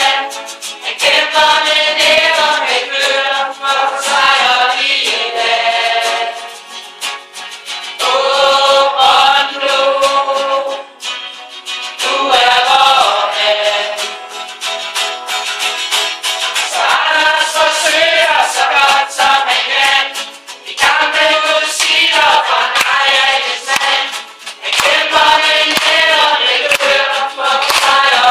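A group of people singing a song together to guitar accompaniment, in sung phrases broken by short pauses.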